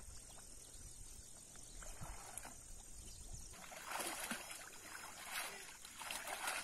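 Faint water sloshing and dripping as a wet cast net is hauled up out of a shallow pond, beginning about halfway through with a few louder splashes; before that only a faint low rumble.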